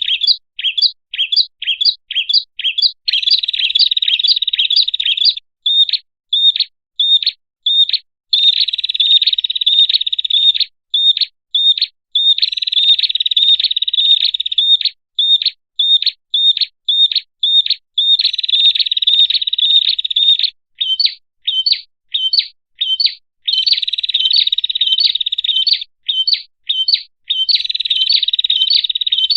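Prenjak kepala merah bird calls from a lure recording. A rapid series of high, sharp chirps, about three a second, alternates with dense trills lasting about two seconds each.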